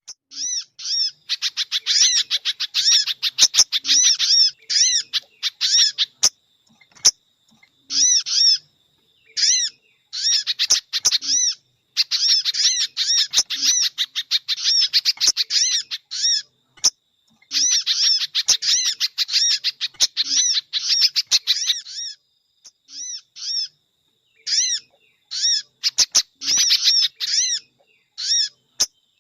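Bird-lure recording of sogon and pijantung (spiderhunter) calls: fast trains of high chirping notes in bursts of one to three seconds, broken by short, abrupt silences. A faint steady high tone runs underneath.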